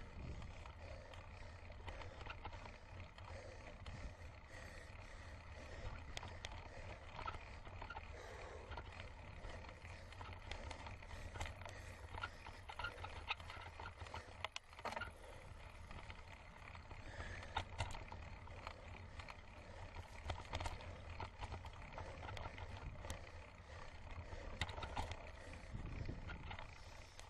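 Handlebar-mounted action camera on a mountain bike climbing a dirt track: a steady low rumble of wind and tyres on the dirt, with scattered clicks and rattles from the bike over bumps.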